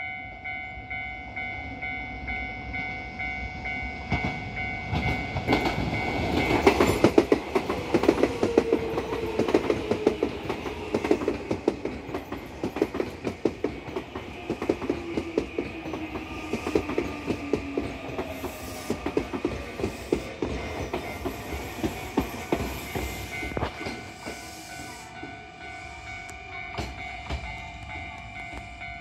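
Nankai 9000 series electric train pulling into a station: wheels clacking steadily over the rail joints, loudest as it draws alongside, with a motor whine falling in pitch as it brakes to a stop.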